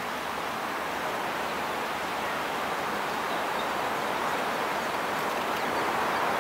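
Steady rushing outdoor background noise with no distinct events, growing slowly louder.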